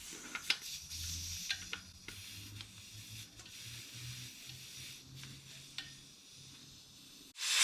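Light clicks and scrapes of hands and a small tool working at a motorcycle tyre's valve stem, with a faint low hum under them. Near the end, air suddenly starts rushing out of the tyre with a loud hiss as it is deflated.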